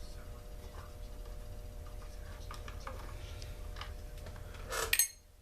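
Light clicks and scratching of small parts and hand tools being handled while a chainsaw is taken apart, over a steady low hum, with one louder clatter about five seconds in.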